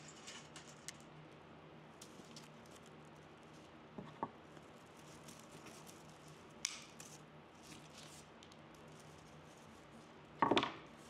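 Scissors snipping evergreen sprigs, with the needles and branches rustling and crinkling on the paper-covered table; a handful of short snips and rustles, the loudest a brief crackle near the end as cut greenery is handled.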